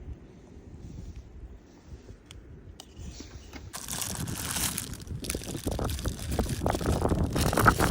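Strong wind gusting, building sharply about four seconds in into a loud rush with rustling and crackling.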